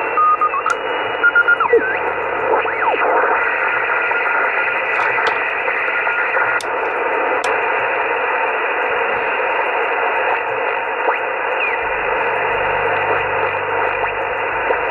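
Kenwood TS-130S HF transceiver's receiver audio from its speaker while tuned across the 20 and 40 metre amateur bands. Steady band static and hiss, heard through its SSB-width filter because no CW filter is fitted, with short steady beeps, whistling tones that glide in pitch as the dial turns, and a few sharp clicks.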